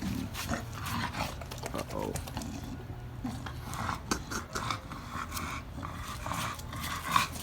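American bully puppies scuffling in rough play, growling, with quick clicks and scrapes of paws and bodies.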